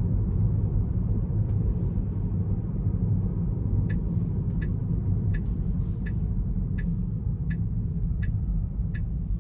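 Steady road and tyre rumble inside a Tesla's cabin. From about four seconds in, the turn-signal indicator ticks evenly, about three ticks every two seconds, signalling for a left turn.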